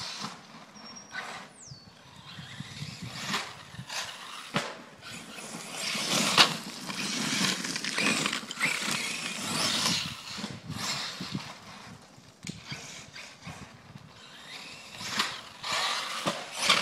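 Radio-controlled truggy on 3.2-inch Badlands monster-truck tires driving hard over loose dirt and gravel: a rough churning noise of tires spinning and spraying dirt, with scattered knocks as it lands and bashes. It grows louder towards the middle and fades away near the end.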